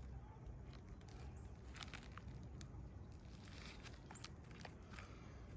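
Faint footsteps and scuffs on a shingle roof: a scatter of short, sharp clicks over a low rumble.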